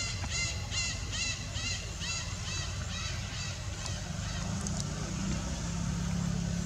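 A steady low motor rumble, with a hum that strengthens a little over halfway through. A repeated high call, a little over two a second, fades out about halfway through.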